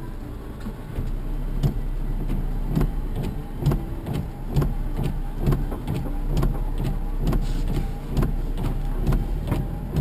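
Toyota Hilux pickup's engine running at low speed in four-wheel low, heard from inside the cab. There is a steady low hum with regular knocks about once a second, and it gets louder about a second in.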